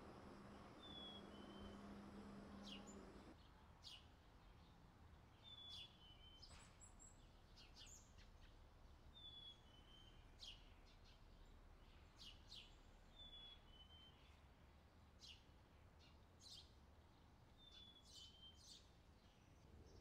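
Faint night-time outdoor ambience: a short high chirp, falling slightly in pitch, repeats about every four seconds among scattered quick high ticks. A low hum in the first three seconds stops.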